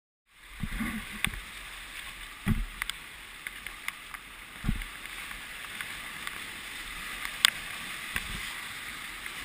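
River water rushing steadily past a Creature Craft whitewater raft, heard close up from the craft, with a few sharp knocks and several low thumps scattered through it.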